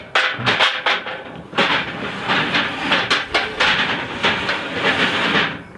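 Aluminium stage truss sections clattering and rattling as they are carried and handled, a dense run of metallic knocks and scraping that drops off sharply near the end.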